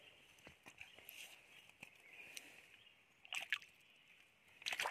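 Hands sloshing and splashing in shallow stream water while catching fish by hand, with small ticks and drips and two louder splashes, about three and a half seconds in and near the end, over a steady high hum.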